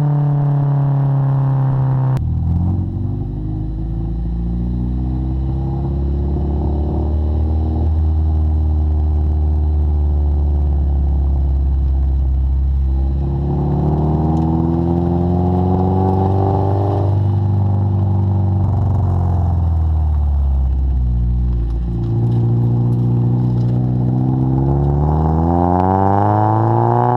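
Mazda MX-5 Miata (ND) four-cylinder engine heard at the tailpipe through an aftermarket full exhaust, a Global Cup-style system with a catalytic converter, while driving. A steady low drone at cruise, with the engine pitch rising under acceleration and falling off again, twice.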